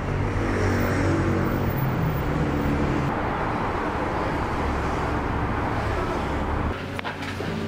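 Steady street traffic rumble, a low drone of passing vehicles, which eases in the bass about seven seconds in.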